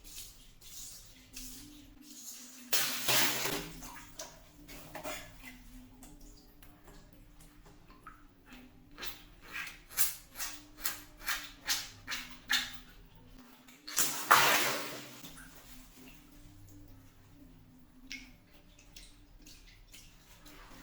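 Water balloons bursting: two loud pops, each followed by about a second of splashing water, roughly eleven seconds apart. Between them comes a run of about eight sharp water splats, two a second.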